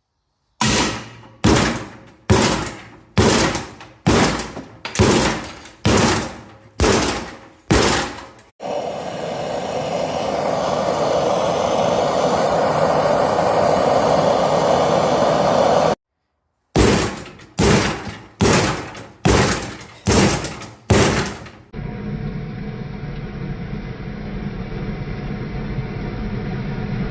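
Repeated blows struck on a seized riding-mower wheel, each a sharp strike that rings and dies away, about one a second: nine blows, then after a long stretch of steady noise, six more, followed by more steady noise.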